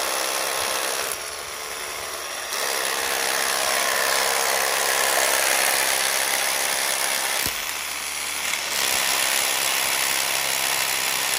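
Cordless rotary hammer drill boring into granite, enlarging an old 5/16-inch bolt hole to 1/2 inch. It runs steadily, eases off for about a second early on, and changes briefly at about seven and a half seconds.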